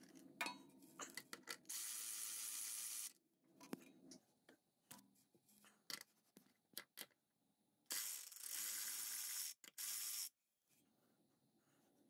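Cordless electric ratchet spinning out the bolts of the drive shaft's centre-bearing brace. It runs in two short spells of about a second and a half each, with a few sharp clicks of the socket and tool in between.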